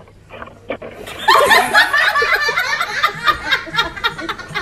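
A burst of loud laughter from several people, breaking out about a second in and going on.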